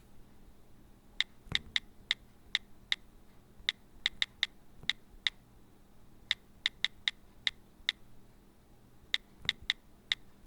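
iPhone on-screen keyboard clicks from typing a text message: short, crisp taps in irregular quick runs with brief pauses between them.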